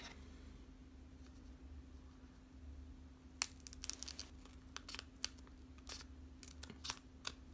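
Faint handling noise of trading cards and foil booster packs. After a nearly quiet start, scattered light crinkles and clicks begin about three seconds in, over a faint steady hum.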